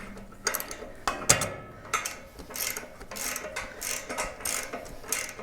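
Hand ratchet wrench clicking in a series of uneven strokes, about one every half second, as a nut or bolt is turned by hand instead of with an impact wrench.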